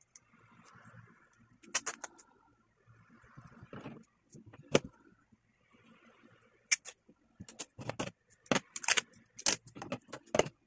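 Tape and paper towels being handled on a tabletop: irregular sharp clicks and crinkles with soft rustling in between. The clicks come thick and fast in the last three seconds.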